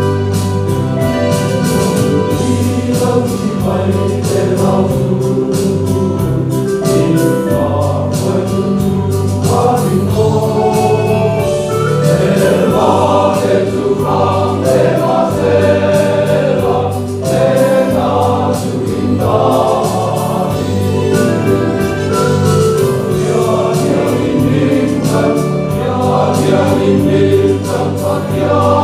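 Men's choir singing a gospel song together, steadily and without pause.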